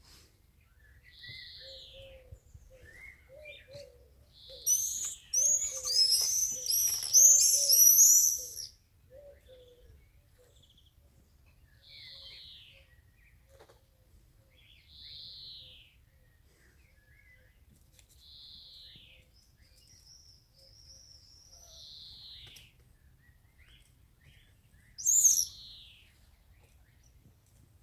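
Common swifts screaming: a loud burst of rapid, shrill screams from about five to nine seconds in, and another short burst near the end. Softer single chirps come every few seconds in between, with a run of low notes early on.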